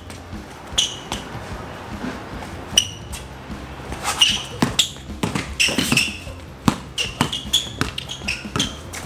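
A basketball dribbled hard on an outdoor court surface, in irregular bounces that come fastest in the middle, with short high squeaks of basketball shoes as the players cut and shuffle.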